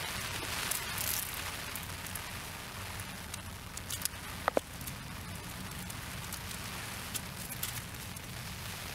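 Rain falling on an umbrella canopy: a steady hiss with scattered drop ticks. Two sharp clicks about four and a half seconds in.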